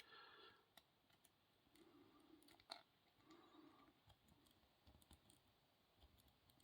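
Near silence with faint, scattered clicks of an S-rake working in the keyway of a small cheap padlock, one slightly louder click a little under three seconds in.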